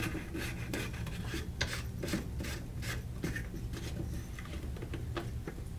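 Desert Tech SRS-A2 monopod being screwed by hand into the rifle's receiver: faint, irregular rubbing and scraping with small scattered ticks as it is turned.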